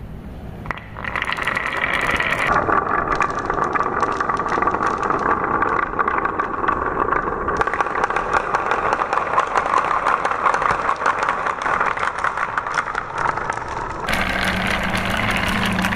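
Many marbles rolling and clattering through carved wooden marble-run channels: a steady, dense rolling rattle with frequent small clicks as the marbles knock together. The sound shifts abruptly a few times.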